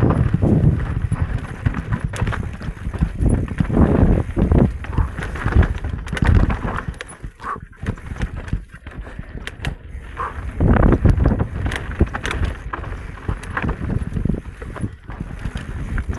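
Electric mountain bike descending a rough dirt trail at speed: tyres on dirt and roots with a steady stream of knocks and rattles from the bike over the bumps, and wind buffeting the microphone. It quietens for a few seconds about halfway through, then picks up again.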